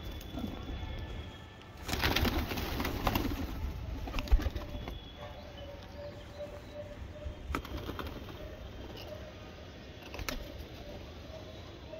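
A flock of domestic pigeons, with a loud flurry of wingbeats about two seconds in that lasts a second or so. Scattered small clicks and rustles from the birds follow.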